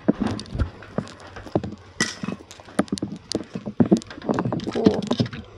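Footsteps and small knocks: irregular taps and clicks at an uneven pace, with a brief scrape about two seconds in.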